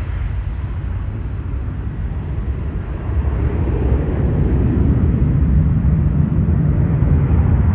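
Jet airliner's engines rumbling, growing louder about three seconds in.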